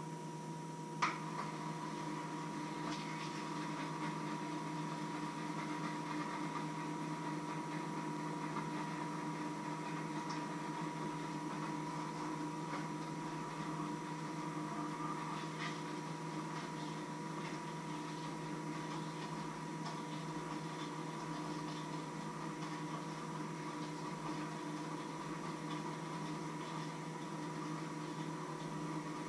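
Steady mechanical hum with a few fixed tones, with one sharp click about a second in and a few faint clicks and knocks of handling on the counter.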